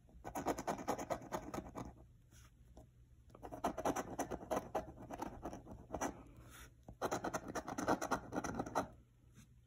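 A coin scraping the coating off a paper scratch-off lottery ticket in three bouts of rapid back-and-forth strokes, with short pauses between.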